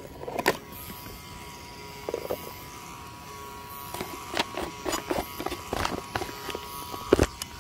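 Handling noise as the plastic body shell of a Hobao Hyper VS RC buggy is taken off and set down: a scatter of short clicks and knocks, thickest in the second half, over a faint steady high hum.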